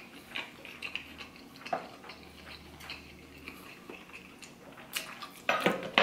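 Quiet chewing of a soup dumpling with scattered light clicks of chopsticks and a spoon. A louder clatter comes near the end as the chopsticks go into a bamboo steamer basket.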